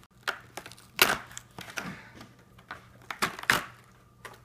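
Cardboard frame of a 3M Filtrete pleated HVAC air filter being torn apart by hand to free the filter material: irregular tearing and crackling, loudest about a second in and again after three seconds.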